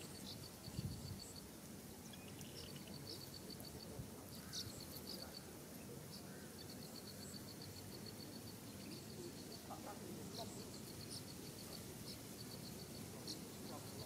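Crickets chirping in repeated trains of rapid high pulses, about a second per train, over a faint low background hiss, with a few brief high bird chirps.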